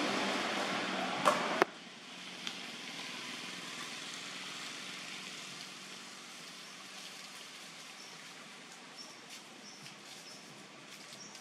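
Steady outdoor background hiss, louder at first and dropping away suddenly after two sharp clicks about a second and a half in, then a quieter hiss with a few faint high chirps near the end.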